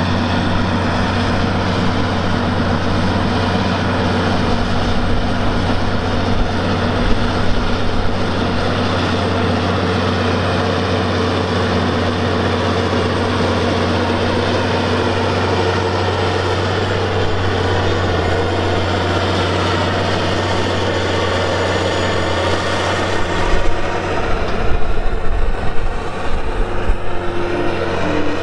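Heavy diesel engine of a Caterpillar Challenger tractor running steadily with a deep drone while hauling a scraper pan. About 23 seconds in the sound grows louder and rougher.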